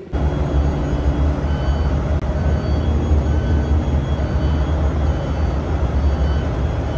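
Steady low rumble of an airport apron shuttle bus driving, heard from inside the cabin, with faint short high-pitched tones coming and going over it.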